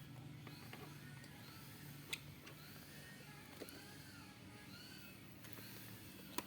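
Faint work on a laptop's bottom-case screws with a screwdriver: a few sharp clicks, one about two seconds in and one near the end, among short, faint squeaky chirps.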